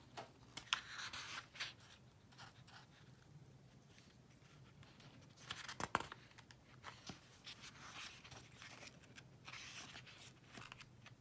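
Pages of a paperback book being turned and leafed through: faint paper rustling with a few soft flicks, the sharpest about six seconds in.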